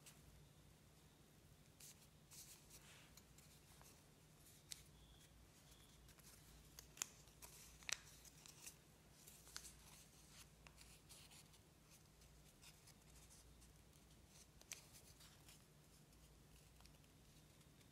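Faint crinkling and crackling of origami paper being folded and creased by hand, with a few sharper crackles about seven to eight seconds in, over a faint steady low hum.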